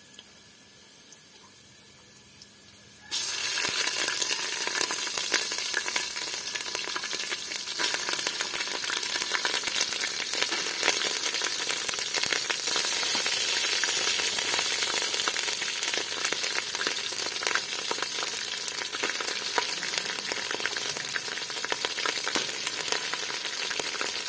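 Beef and onions sizzling in hot oil in an aluminium pot, a dense, steady crackle that starts abruptly about three seconds in after a faint background hiss.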